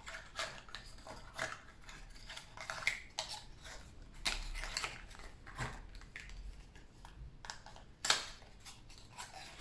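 Small glass nail polish bottles being handled and a plastic screw cap twisted open: a run of small clicks and scrapes, with one sharper click about eight seconds in.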